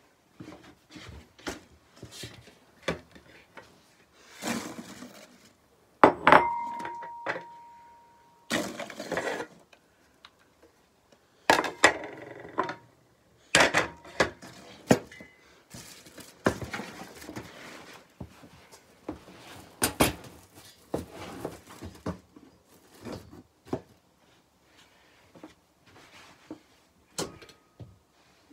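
Household objects, among them a metal desk fan, being handled, knocked and set down: irregular knocks, clatters and clinks. About six seconds in a loud metallic clang rings on for about two seconds.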